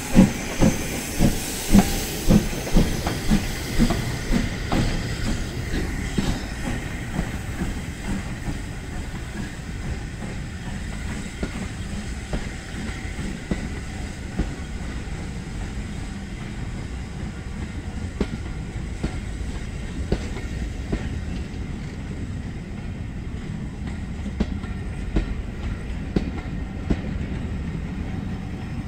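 Q class steam locomotive pulling away, its exhaust beats about two a second and quickening slightly before fading in the first few seconds. The train then rolls on with a steady rumble, its wheels clicking over the rail joints.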